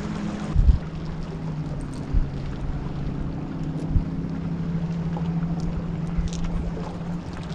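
Steady low hum of a boat motor, with wind bumping the microphone now and then.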